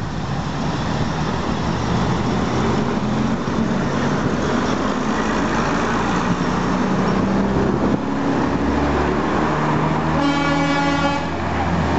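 Class 101 diesel multiple unit pulling past along the platform, its diesel engines running with wheel and rail noise. About ten seconds in, its horn sounds once for about a second.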